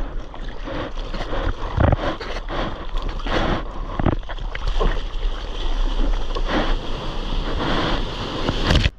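Hands paddling a surfboard, splashing with each stroke, over a steady rush of water along the board and a low rumble of wind on the microphone; near the end, the breaking wave's whitewater rushes alongside.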